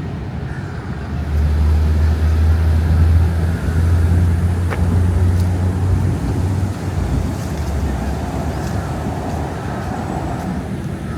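Low rumble of road traffic, swelling for several seconds as a vehicle goes by, then settling back to a steady background hum.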